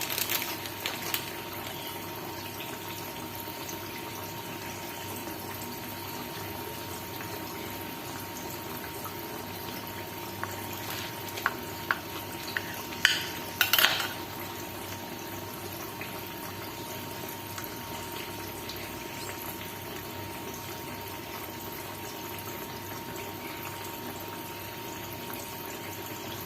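Steady hiss of food cooking in a pan on the stove, with a few light clinks of utensils about halfway through.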